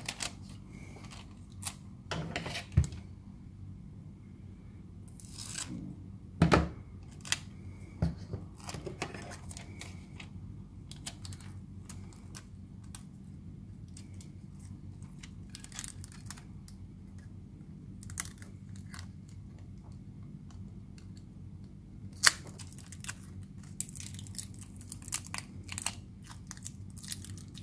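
Kapton heat-resistant tape being peeled off its roll, torn and pressed onto a circuit board: scattered short rips and crinkles with handling clicks, busiest near the end.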